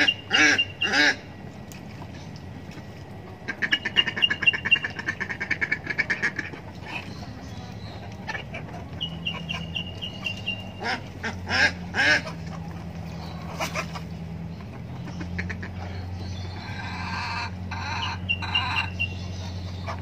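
Domestic ducks quacking: a few loud quacks about a second in, a fast run of calls a few seconds later, and more quacks scattered through the rest.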